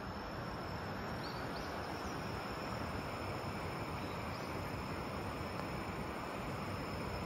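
Steady outdoor background noise, an even rushing hiss, with a faint high insect trill running through it and a few short chirps between one and two seconds in.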